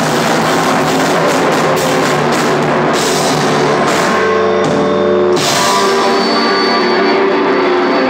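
Hardcore band playing live and loud: guitars, bass guitar and a drum kit with cymbals. About halfway through the cymbals and drums break off and held, ringing guitar chords carry on.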